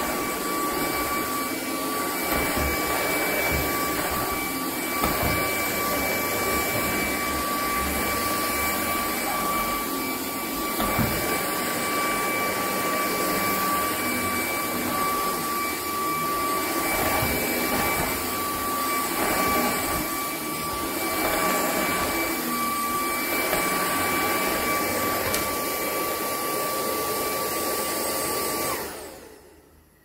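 Hoover ONEPWR Evolve Pet Elite cordless upright vacuum cleaner running with a steady whine as it is pushed over a rug and a wooden floor. Near the end the motor switches off and winds down.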